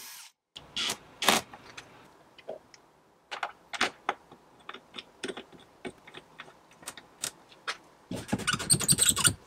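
Scattered clicks and knocks of a plywood panel and a plastic-capped bolt being handled and fitted, with a longer burst of rattling and scraping near the end.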